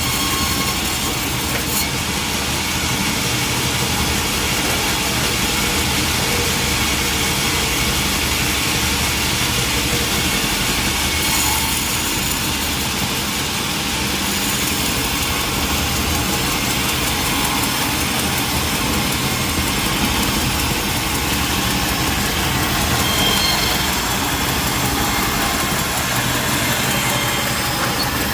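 Sawmill machinery running steadily, a constant engine-like hum under an even hiss, with no breaks or impacts.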